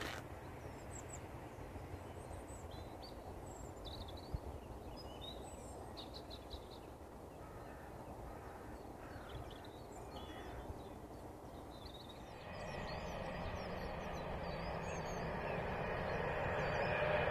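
Birds chirping over a quiet countryside background, then from about twelve seconds in the growing noise of an approaching Class 390 Pendolino electric train: a rushing rumble with a steady whine over it, getting louder toward the end.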